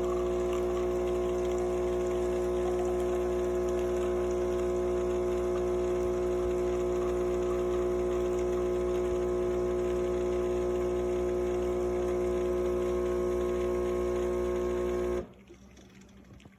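Philips 4300 Series LatteGo fully automatic espresso machine's pump running as it dispenses a drink, a steady hum that cuts off suddenly about fifteen seconds in.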